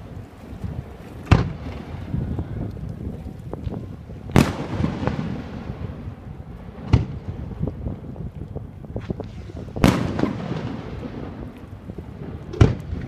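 Aerial firework shells bursting in a display: five loud bangs roughly every three seconds, each trailing off in echo, with smaller crackles and a low rumble between them.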